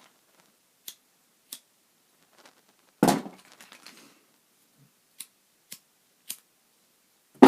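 Plastic lighters being handled and tried: a few sharp clicks, a loud clatter of lighters knocking together about three seconds in, and another hard knock near the end.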